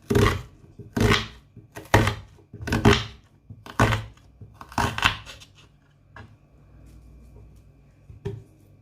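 Knife cutting through red onion on a chopping board: six loud crunching strokes about a second apart, then a few lighter taps.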